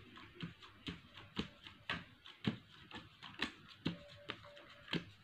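Playing cards dealt one at a time onto piles on a cloth-covered table, each card landing with a soft tap about twice a second in a steady rhythm.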